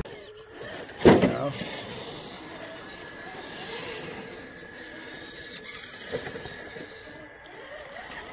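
Scale RC rock crawler truck creeping over a wooden crib ramp: a steady whine from its electric motor and gearbox, with a sharp knock about a second in.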